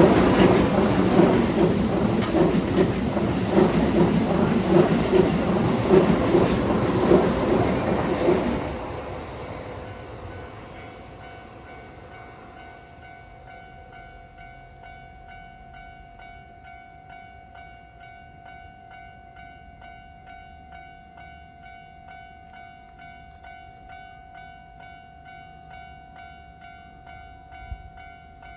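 A Keihan Main Line electric train clatters over a level crossing on steel wheels and fades away about nine seconds in. The crossing's electronic warning bell is left ringing, a repeated metallic ding at a steady beat.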